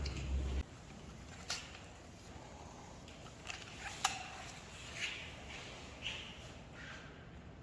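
Partition installation work: a low hum cuts off about half a second in, followed by scattered light knocks and clicks, two of them sharper than the rest.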